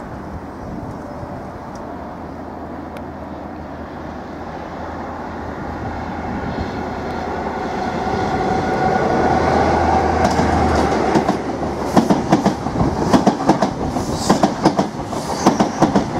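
Class 43 HST diesel power car approaching and passing close by, its engine's steady low drone growing louder. From about ten seconds in, the wheels clatter rhythmically over the rail joints as the train goes past.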